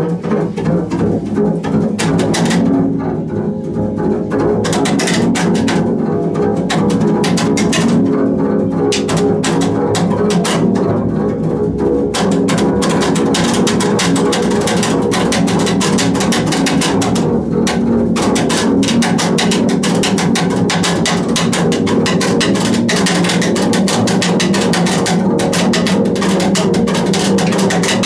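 Solo double bass played with the bow in an experimental, extended technique: a dense, sustained low drone overlaid with a rapid, continuous chatter of scraping noise. The sound thickens and grows steadier a few seconds in.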